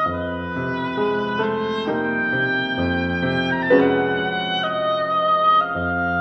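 Oboe, bassoon and piano trio playing a contemporary chamber piece: long held woodwind notes over piano, several pitches at once, moving to new notes every second or so.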